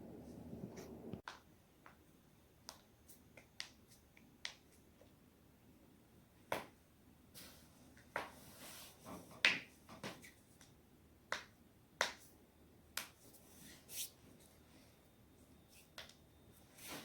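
A string of sharp cracks and pops from spinal joints being forcibly twisted, irregularly spaced and varying in strength, some single and some in quick pairs.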